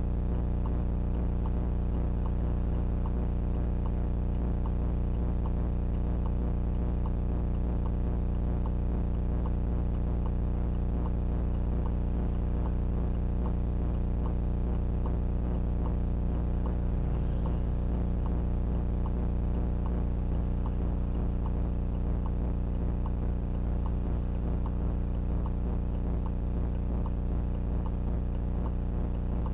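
Steady electrical hum with a regular ticking running through it, recorded by a VIOFO A119S dash cam. This is interference noise on the camera's audio track, a recording fault, not a sound from the road.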